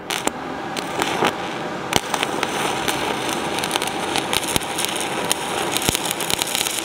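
Aluminum stick-welding arc with a 4043 aluminum electrode, struck right at the start and then burning with a steady crackle full of sharp pops and clicks.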